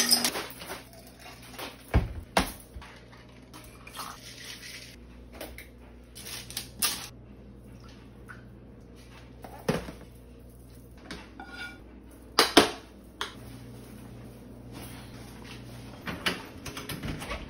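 Kitchen handling sounds: scattered knocks and clinks of a frying pan, glass and utensils being set down and moved, over a low steady background hum. The loudest is a sharp knock about twelve seconds in.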